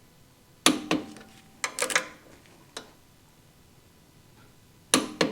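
Sharp metallic clicks and clanks, mostly in pairs, each with a brief ring, from metal tools or brake parts being handled and set down.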